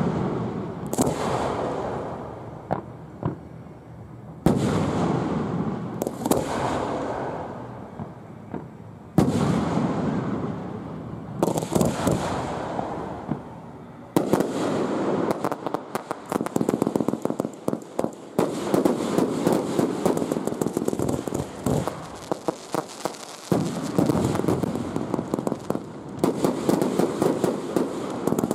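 Aerial fireworks shells bursting with loud bangs every few seconds, each dying away over a second or two. From about halfway through, dense rapid crackling joins the bangs, from green crackling stars.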